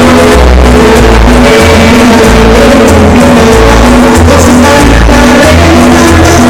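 Dance music played very loud through a disco sound system, with a heavy bass line pulsing underneath sustained melody notes.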